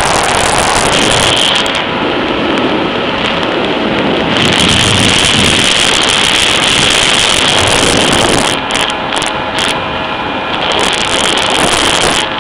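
Kawasaki ZXi jet ski's two-stroke engine running at high speed under a heavy rush of wind and water noise. The rush drops back for a couple of seconds about nine seconds in, then builds again.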